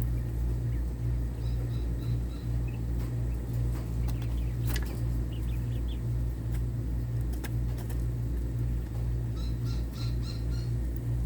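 Coturnix quail giving short runs of high chirps, about a second and a half in and again near the end, over a steady low hum.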